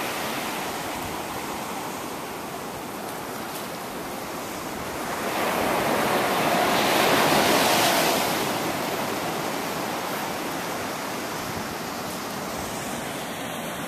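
Small ocean waves breaking and washing up a sandy beach: a steady hiss of surf that swells for a few seconds near the middle, then eases back.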